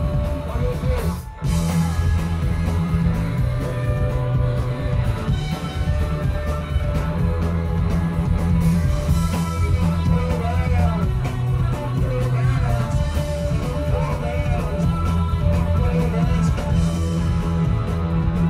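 Live rock band playing loud through a club PA: electric guitar, bass and drum kit, with a brief break in the music about a second in.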